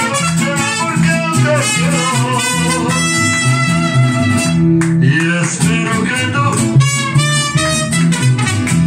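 Live mariachi band playing, with guitars over a steady repeating bass line and melody instruments above; the music dips briefly about five seconds in.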